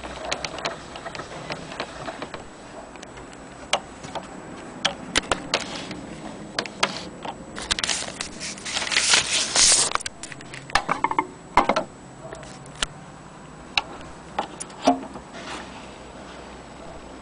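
Handling noise of a shellac 78 rpm record being drawn from its paper sleeve and laid on a gramophone turntable: scattered clicks and knocks, with a rustle of paper lasting about two seconds from around eight seconds in.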